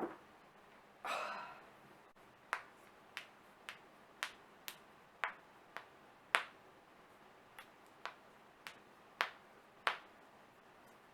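Finger knuckles cracking one after another: about a dozen sharp pops, roughly two a second with a few short gaps, after a brief rougher noise about a second in.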